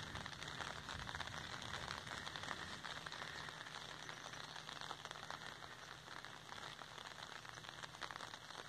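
Light rain falling on an umbrella held just over the camera: a soft, steady patter of drops on the fabric.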